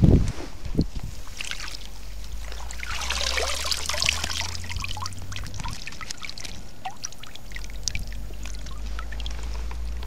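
Water pouring off a wire-mesh keepnet full of fish as it is lifted out of the water, heaviest about three seconds in, then trickling and dripping in many small ticks.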